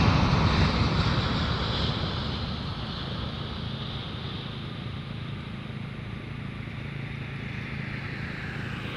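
Jet airliner engine noise fading as the aircraft moves away over the first three seconds or so, leaving a steady distant rumble.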